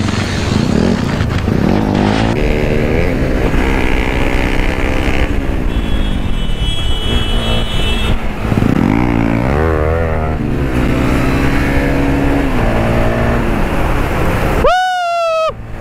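KTM Duke 250's single-cylinder engine under way, its note climbing and dropping in pitch as the rider accelerates and shifts gears. Near the end the sound breaks off for a moment and a sharp rising whine sweeps up.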